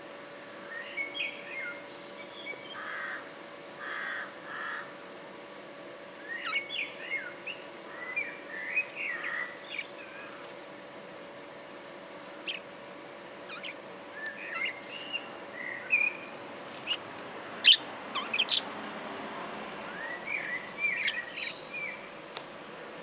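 Budgerigars chirping and chattering in short bursts of quick rising and falling notes, with a few sharp clicks about three-quarters of the way through.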